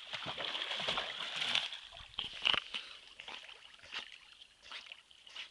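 Water splashing and sloshing as an American Staffordshire terrier swims in a river. The splashing is loudest in the first two and a half seconds, with a few sharp splashes near the end of that stretch, then it eases to lighter lapping.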